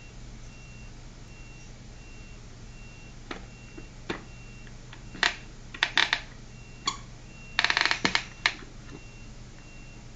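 Sharp plastic clicks and knocks from a baby walker's toy tray being slapped and handled, several single knocks, then a quick rattling burst, the loudest part, about eight seconds in. A faint high electronic beep repeats about twice a second throughout.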